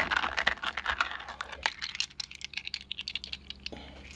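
A hand swirling and fishing small brass Meccano parts out of a plastic jug of water: sloshing with quick light clicks, then scattered clicks and taps that thin out through the second half.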